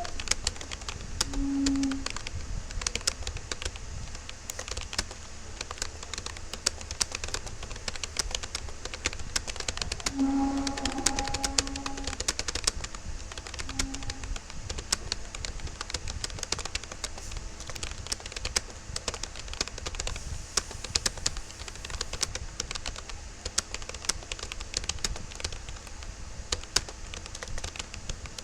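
Fast, continuous touch-typing on a Rapoo computer keyboard: a steady, uneven stream of key clicks and keystrokes. A few brief faint tones sound in the background near the start and around the middle.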